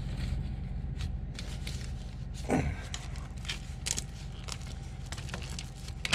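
Scattered clicks, scrapes and rustles of shower drain parts being handled and pre-fitted, over a steady low hum, with a brief falling squeak about two and a half seconds in.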